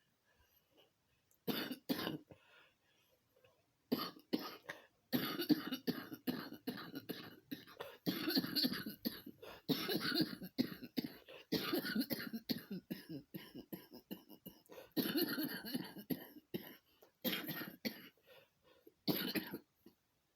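Repeated coughing: a couple of coughs about a second and a half in, then long runs of rapid coughs in fits with short pauses between them, stopping just before the end.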